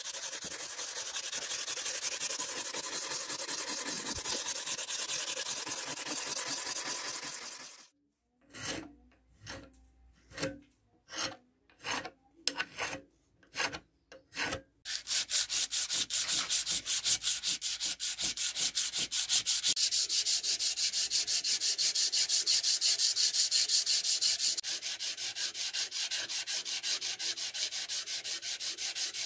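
Steel cleaver blade rubbed by hand against an abrasive to sharpen and polish the edge. First an unbroken scraping, then about a dozen separate strokes, then from about halfway rapid, even back-and-forth strokes, several a second.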